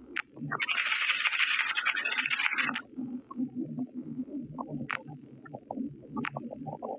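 A harsh scraping rustle for about two seconds, followed by scattered light clicks and knocks.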